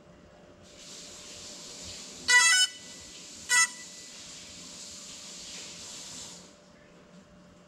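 A vehicle horn honks twice, a longer honk and then a short one about a second later, over a soft hiss that swells and fades like a passing vehicle.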